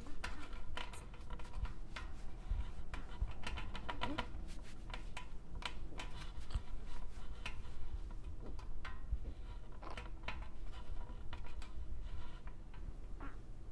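Light, irregular clicking and ticking over a faint steady hum.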